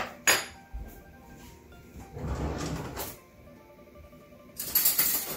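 A kitchen drawer being opened and shut while a spoon is fetched from it: two sharp knocks at the start, a rattling stretch in the middle, and a louder clattering slide near the end.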